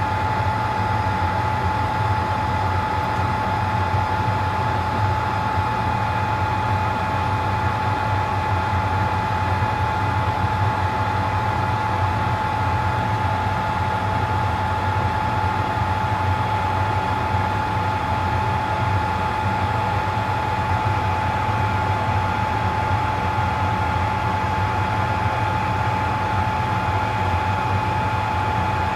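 Electric blower fans of a rework bench running steadily: an even rush of air with a constant high whine and a low hum underneath.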